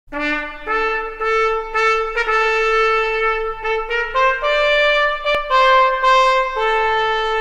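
A trumpet playing a melody of held notes that step up and down in pitch, used as intro music.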